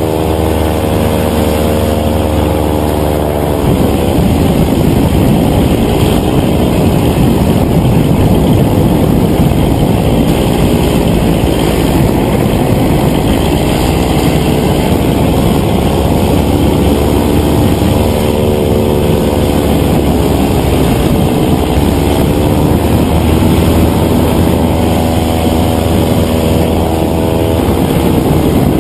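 Paramotor engine and propeller running steadily in flight, heard from right at the pilot's harness, its pitch wavering up and down a few times as the power shifts.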